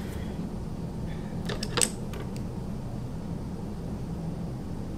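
A few light plastic clicks just under two seconds in as an eyeshadow palette is opened and handled, over a steady low room hum.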